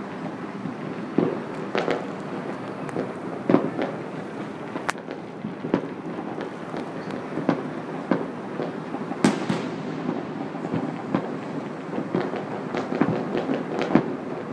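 Distant fireworks going off across a town: many irregular bangs and pops over a steady crackling rumble, the sharpest about five and nine seconds in.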